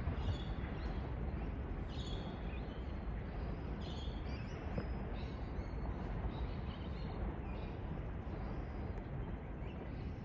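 Steady outdoor background noise with a low rumble, and short high bird chirps every second or two.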